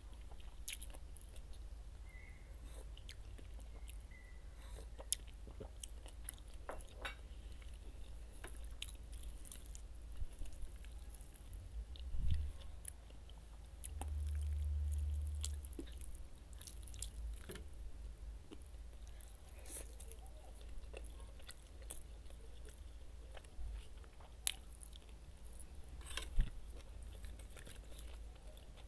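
Close-miked eating sounds: chewing and biting of oven-roasted chicken, with scattered wet clicks and crunches over a faint low hum. About halfway through, a dull low rumble lasts a second or so.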